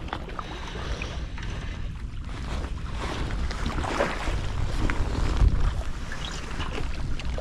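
Wind buffeting the microphone, a low rumble that grows stronger about halfway through, over faint sea noise.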